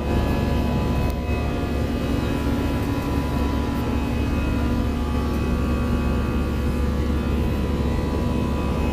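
Jet airliner cabin noise: the engines and airflow make a steady, heavy drone with a few constant tones, heard from inside the passenger cabin.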